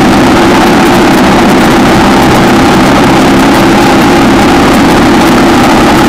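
1960 AJS 650 parallel-twin motorcycle engine running under way at a steady pitch, loud and constant.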